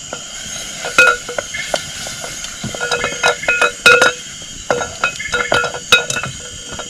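Metal utensil clinking against a cooking pot over a campfire: a string of irregular sharp strikes, each ringing briefly at the same pitch, loudest about a second in and near the middle. Crickets chirp steadily underneath.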